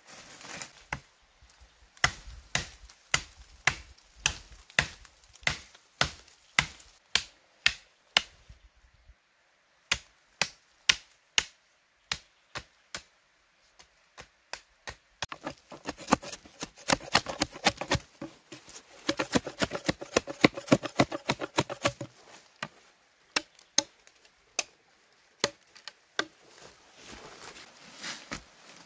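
Chopping with a blade into wood: sharp strikes at about two a second, then a faster, denser flurry of blows a little past the middle, then a few scattered strikes.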